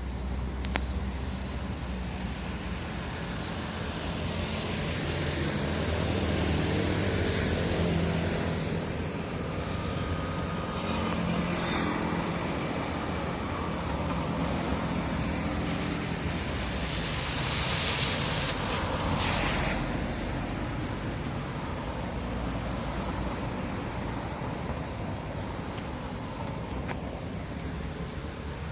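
Road traffic: cars and other vehicles running and passing, the engine hum swelling about five to nine seconds in, with a brief hiss around eighteen seconds in.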